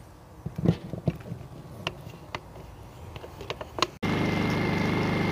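Several sharp clicks and knocks of a shore-power cord's plug being handled and fitted into a trailer's power inlet. About four seconds in, a sudden cut to a Honda 2000 portable generator running steadily, with a thin high whine over its hum.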